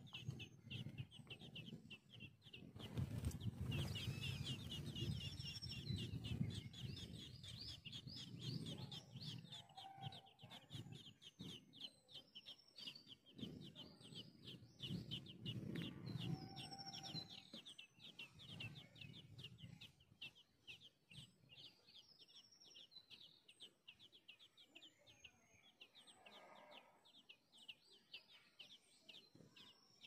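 Thrush nestlings begging from the nest, a fast, continuous run of short high cheeps. Low rustling and rumbling over the first half fades out after about 18 seconds.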